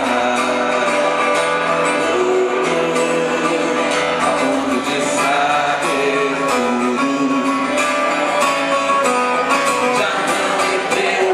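A man singing live into a microphone while strumming an acoustic guitar.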